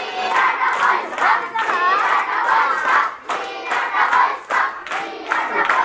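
A crowd of young voices shouting and chanting together, with hand claps.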